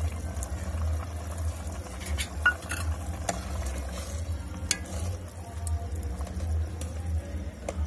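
A metal ladle stirring a watery curry in a steel kadai, with a few sharp clinks of the ladle against the pan over a low steady rumble.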